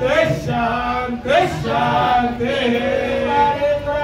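Devotional chant-style singing by a male voice, with sustained, gliding sung notes over musical backing.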